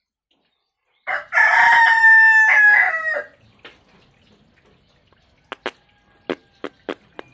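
A rooster crowing once, a loud cock-a-doodle-doo lasting about two seconds that falls in pitch at the end. A series of sharp clicks follows near the end.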